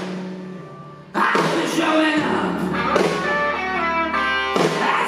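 Live rock band with electric guitar: a held note fades away, then the full band comes back in loudly about a second in, with the bass joining a second later.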